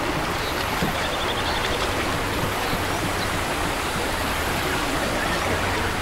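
River water flowing steadily, an even rushing sound.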